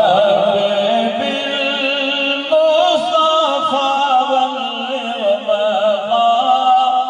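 A man singing a naat in long, drawn-out phrases, holding wavering notes that step between pitches.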